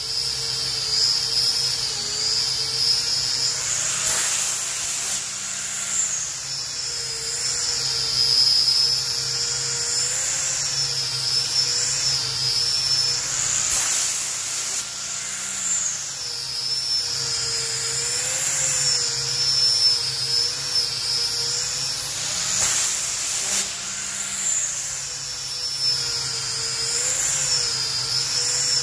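Small angle grinder with a sanding disc running continuously while sanding a pine slab, its whine dipping and recovering in pitch as it is pressed into and eased off the wood.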